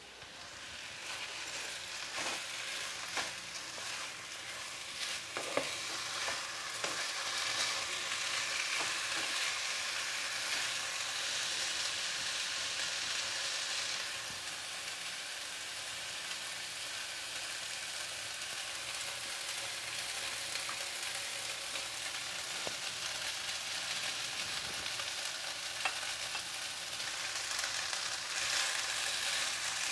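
Washed raw rice sizzling as it is stir-fried in oil with sautéed garlic, onion, ginger and turmeric in a nonstick wok, toasting before any liquid goes in. A slotted spatula scrapes and knocks against the pan now and then.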